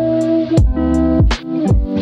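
Background music with sustained chords over a steady drum beat.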